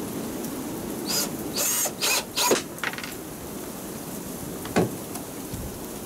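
Cordless drill driving a screw into a wooden rack in several short bursts in the first half, with a single click near the end, over steady wind noise.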